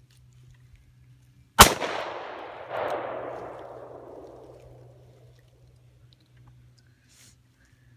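A single shot from a Smith & Wesson Model 25-5 revolver in .45 Long Colt, fired about one and a half seconds in, with a long decaying tail that swells again about a second after the shot.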